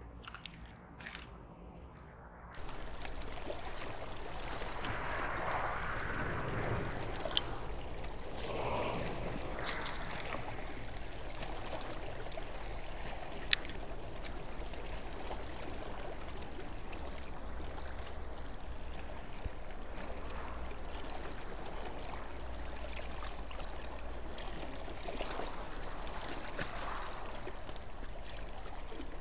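Water sloshing and trickling against a harbour wall, a steady wash with slow swells that starts about two and a half seconds in. Two short sharp clicks sound, one near a quarter of the way in and one about halfway.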